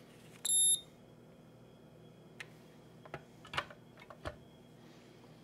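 A single short, high-pitched electronic beep from a handheld infrared thermometer taking a reading, followed by a few light clicks and knocks as the radio is handled, over a faint steady hum.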